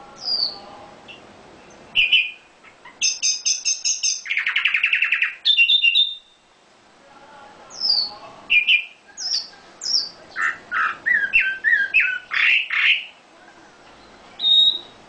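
A songbird singing in phrases of short high chirps, quick downslurred whistles and fast trills, with brief pauses between phrases.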